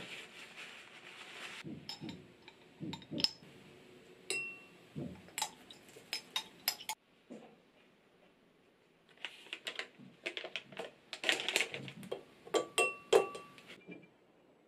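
Kitchen handling sounds. A paper towel rustles for the first second or so, followed by scattered clinks and taps of a glass, spoon and bowl, with a cluster of crinkles and clicks about 9 to 14 seconds in as a plastic snack packet is handled and cream is spooned into the glass.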